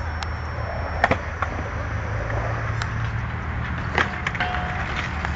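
Skateboard rolling on concrete: a steady low rumble of the wheels, with a few sharp clacks of the board, one about a second in and another near the end.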